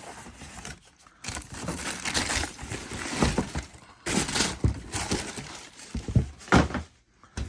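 Shoebox packaging and wrapping paper being handled: irregular crinkling and rustling with a few sharp knocks.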